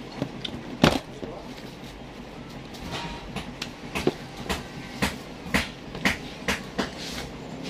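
A run of sharp knocks and clicks, close by, as things are handled near the phone: one loud knock about a second in, then about two a second through the second half, over steady background noise.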